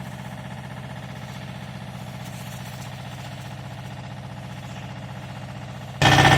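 An engine idling steadily with an even hum. About six seconds in, the sound jumps suddenly much louder.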